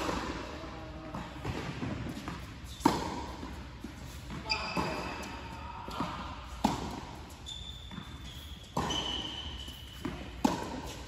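Tennis rally: racquets striking the ball and the ball bouncing on a hard court, a sharp hit every one and a half to two seconds, each echoing through a large indoor hall.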